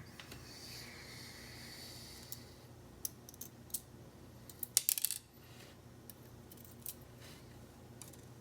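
Small metal lock parts (pins and springs) clicking and tapping as they are handled and set down during gutting: scattered light clicks, with a quick cluster of sharper ones about five seconds in.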